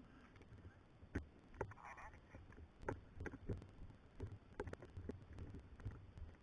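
Faint, scattered clicks and knocks at irregular intervals over a low rumble, with a faint distant voice briefly about two seconds in.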